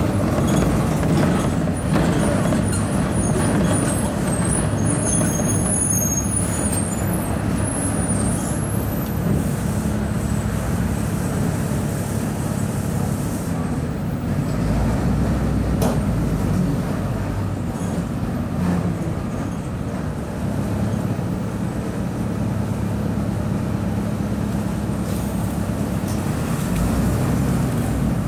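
Diesel engine of a 2007 Volvo B270F city bus running steadily as the bus drives, heard from inside the passenger cabin along with road noise and occasional knocks.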